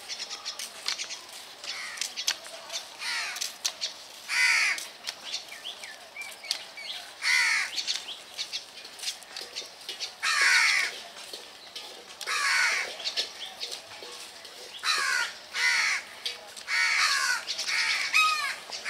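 Crows cawing: loud, harsh single caws every few seconds, coming in quicker succession near the end.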